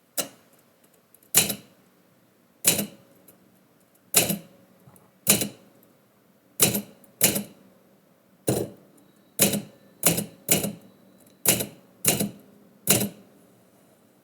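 Typewriter keys struck one at a time, slowly and unevenly: fourteen separate sharp clacks, each with a short ring. The typist is using a deliberately light touch on the keys.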